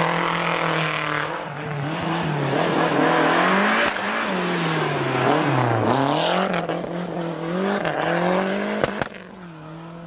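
Lancia Delta HF Integrale rally car's turbocharged four-cylinder engine at racing speed. Its note rises and falls repeatedly with throttle lifts and gear changes as the car comes through the bends. It is loudest as the car passes close about six seconds in and drops away suddenly near the end.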